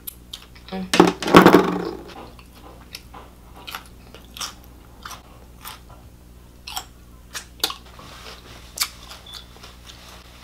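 Close-miked eating: chewing a crunchy hard-shell corn taco. A louder mouth sound comes about a second in, then irregular sharp crunches and mouth clicks as she chews.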